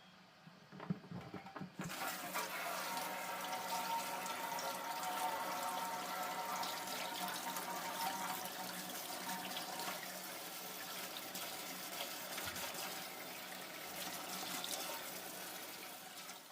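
A few knocks, then water starts running from a tap about two seconds in and flows steadily.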